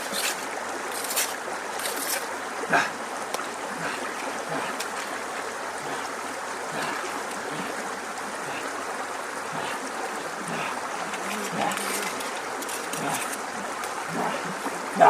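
Steady running water, trickling, with a few small splashes and clicks near the start.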